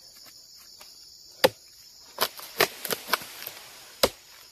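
Sharp clicks and cracks of a hooked harvesting sickle working at an oil palm fruit bunch and its spiny frond stalks: one loud crack about one and a half seconds in, a quick run of clicks after two seconds, and one more near the end. A steady high-pitched drone of insects runs underneath.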